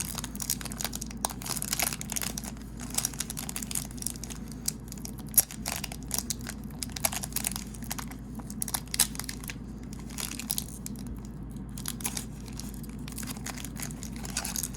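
Hard plastic blister-pack packaging crinkling and crackling in rapid, irregular bursts as hands pry and try to tear it open, without success.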